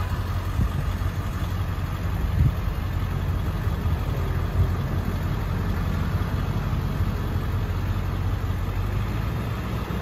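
Steady low rumble of a car's engine and tyres, heard from inside the cabin while driving slowly.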